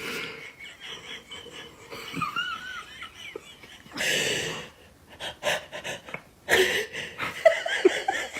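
Baby laughing: a few high squealing glides about two seconds in, a breathy gasp around the middle, then a run of short, quick laughs getting louder near the end.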